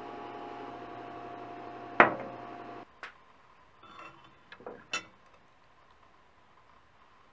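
A steady hum with one sharp click about two seconds in. The hum cuts off, and a metal strip then clinks a few times against the rim of a glass mason jar as it is hooked over the edge.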